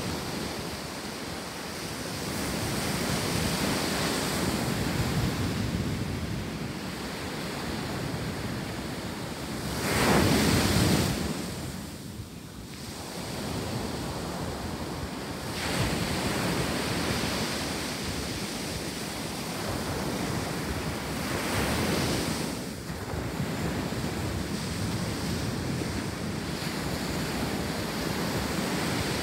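Ocean surf washing onto a beach, with wind on the microphone. The waves swell and fall; the loudest one breaks about a third of the way in, with smaller surges later.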